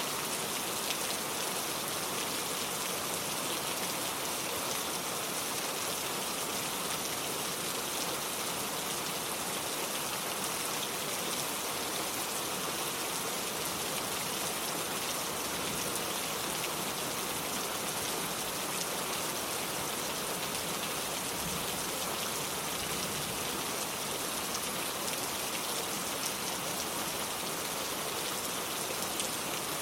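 Steady rain falling, an even hiss with no let-up and no thunder.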